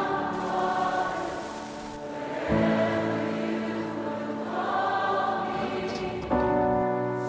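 Background music with a choir singing long held chords that change every few seconds.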